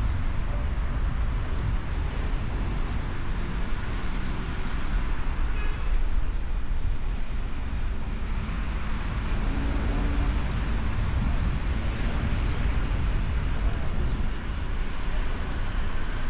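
Motorcycle riding at speed: steady wind rush over the microphone with the engine running underneath.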